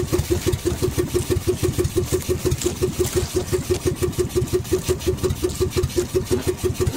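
Small engine of a motorised outrigger fishing boat running steadily under way, a rapid even throb of about six pulses a second.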